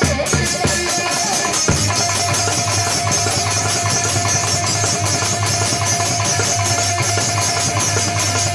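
Electronic keyboard playing an instrumental passage over a steady built-in drum rhythm, with a long held note.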